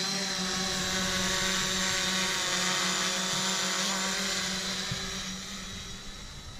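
JJRC X11 Scouter quadcopter's motors and propellers buzzing steadily as it lifts off from a hand on automatic take-off and flies off to hover, the sound fading over the last second or so as it moves away.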